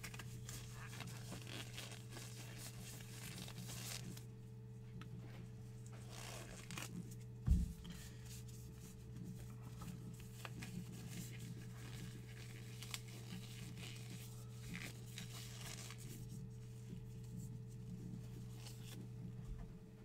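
Trading-card packs and their wrapping being torn open, with plastic and foil wrappers rustling on and off over a steady low hum. A single short thump comes about seven and a half seconds in.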